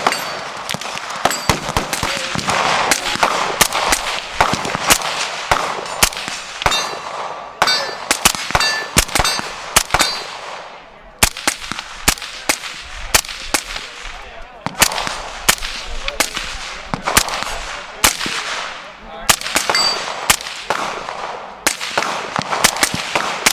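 Irregular gunfire from several guns, shots sometimes in quick strings, with steel targets ringing with a short high ping when hit.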